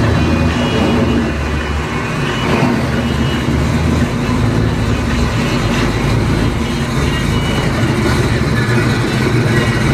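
A car engine running steadily, with its sound sitting mostly low in pitch.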